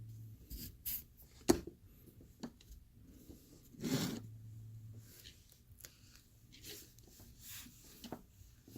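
Small handling noises at a workbench as two pieces of LED strip are lined up and worked together for soldering: scattered clicks, taps and rubbing, with one sharp tap about one and a half seconds in and a short rustle around four seconds. A low hum starts and stops a few times.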